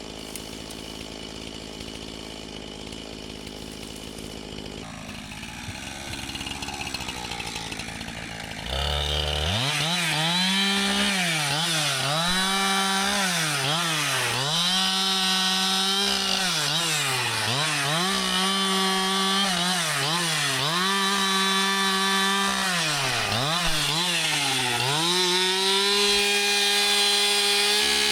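Chainsaw: a quieter engine sound for the first several seconds, then the saw runs loud at high revs about nine seconds in. Its pitch sags and climbs back every couple of seconds as it is throttled through cuts in fallen timber.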